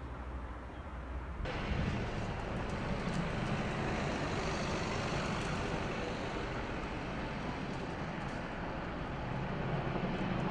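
Outdoor sound at an active forest fire: a steady rushing noise with a low rumble underneath, cutting in abruptly about a second and a half in.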